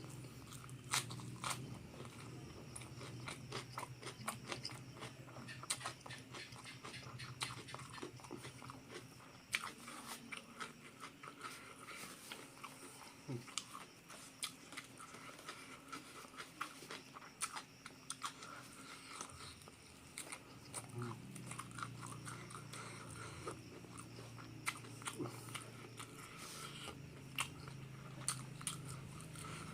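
Close-miked eating: a person chewing and biting into crispy fried duck and rice, with many irregular crunches and mouth clicks.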